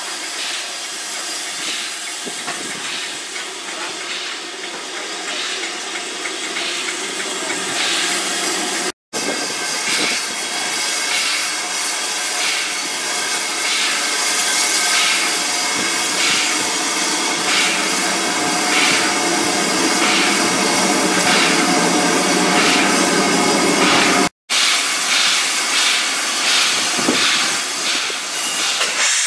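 LNER B1 steam locomotive 61306 Mayflower standing in steam: a steady hiss with a regular pulsing beat, about once or twice a second, that quickens near the end. The sound cuts out for an instant twice.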